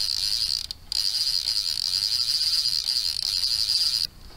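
Okuma Avenger spinning reel's drag slipping as old line is pulled off the spool, the drag loosened all the way down: a rapid high buzz of clicks in two long pulls, with a short break just under a second in, stopping about four seconds in.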